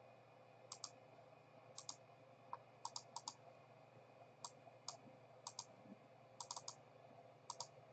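Faint clicking of a computer mouse and keyboard, in short clusters of one to four quick clicks every second or so, over a low steady hum.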